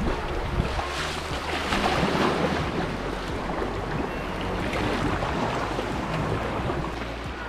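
Sea swell surging and foaming through a narrow rock channel around a sea kayak, with splashes against the hull and paddle and wind on the microphone. The wash swells loudest about a second or two in, then settles.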